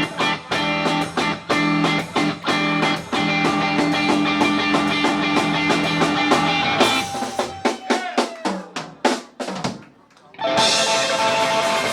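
Live blues-rock band with drum kit and guitar playing the close of a song: a run of separate drum hits takes over about seven seconds in and dies away about ten seconds in, then a steady noisy sound with a held tone starts up.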